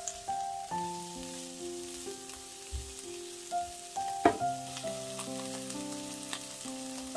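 Diced onions sizzling in oil in a frying pan, stirred with a spatula that clicks and scrapes against the pan, with one sharp knock about four seconds in. Soft background music with long held notes plays underneath.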